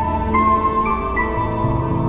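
Background music: a slow ambient melody of held notes, changing pitch every half second or so.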